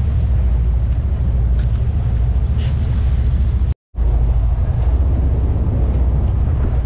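Sportfishing boat's engines running steadily under way, a low drone mixed with wind on the microphone and the rush of the wake. The sound cuts out for a split second a little past the middle.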